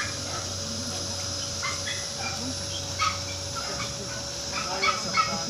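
A dog yipping and barking in short sharp calls, loudest about three seconds in and twice near the end, over a steady low hum.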